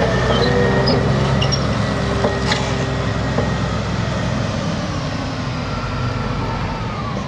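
Heavy diesel engine of an elevating scraper running steadily under load, with a thin steady squeal above it, easing off slightly near the end.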